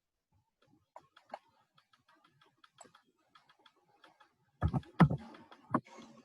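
Computer keyboard and mouse being used: scattered light clicks, then a quick run of louder keystrokes about four and a half seconds in.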